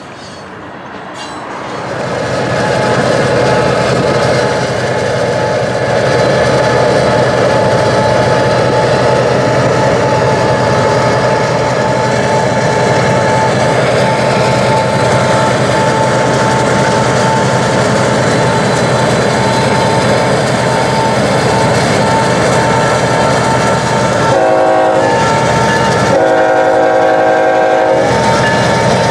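GE ES44AH diesel locomotive leading a freight train, loud and steady as it runs alongside, rising about two seconds in. Near the end its air horn gives a short blast and then a longer one.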